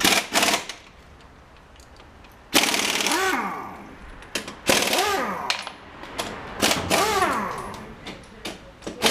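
Pneumatic impact wrench hammering on the wheel nuts of a tractor's front wheel, in short bursts of about a second each, four times, the motor's pitch rising and falling within each burst.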